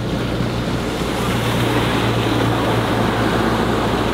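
Sailboat's inboard diesel engine running with a steady low hum while under way, under the sound of water rushing and splashing along the hull; the water noise grows louder about a second in.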